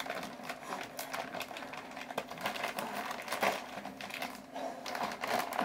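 Packaging rustling and crinkling as it is handled and opened by hand, in irregular crackles, over a faint steady hum.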